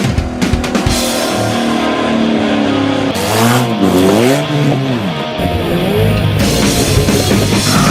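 Rock music with drums and guitar, with a swooping pitch-bent passage about halfway through.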